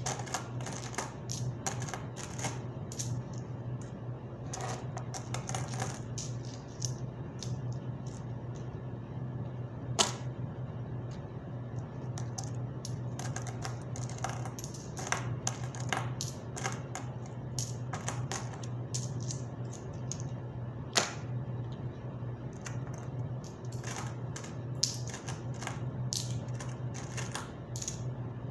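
Coins clicking and clinking in a quick, irregular run of small taps as they are handled and counted by hand, with a couple of sharper clinks about ten and twenty-one seconds in. A steady low hum runs underneath.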